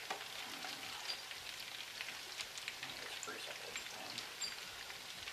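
Meatballs frying in a pan: a steady sizzle with many small crackling pops of fat.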